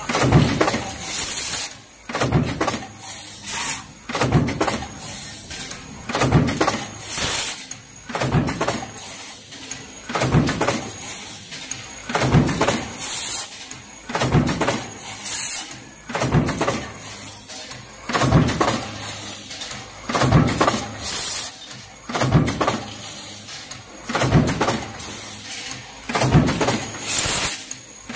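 Punch press running a progressive die that stamps steel strip into junction boxes. The die cycles with a regular heavy stroke about once a second.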